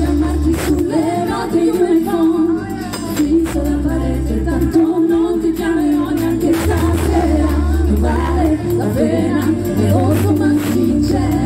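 Live band music played loud through a stage sound system, with women singing lead into microphones over a sustained bass line and an electric guitar.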